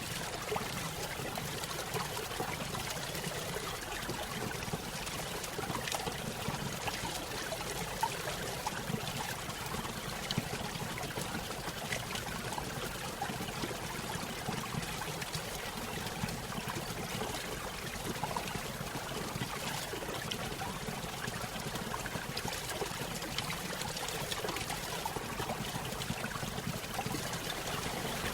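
Small stream running over a small waterfall: steady trickling and splashing water with many small splashes.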